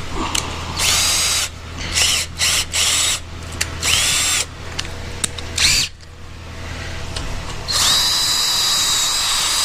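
Electric drill revved in several short trigger bursts, each spinning up in pitch, then run steadily for about three seconds near the end while drilling a screw hole.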